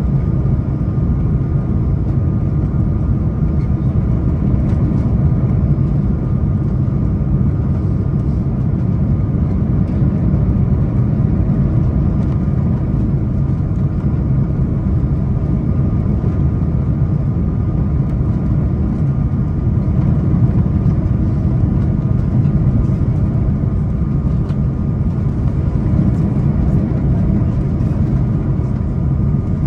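Airbus A340 cabin noise on final approach: a steady low roar of engines and airflow, with a few faint steady engine tones riding above it.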